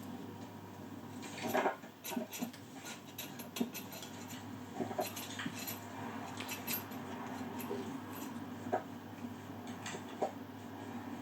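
Scattered light metallic clicks and clinks of hand tools on turbocharger parts during a rebuild, with a louder knock about one and a half seconds in, over a faint steady hum.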